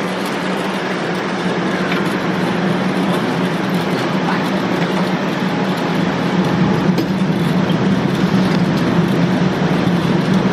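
Steady mechanical rushing noise with a low hum, growing slightly louder and with no gunshots in it.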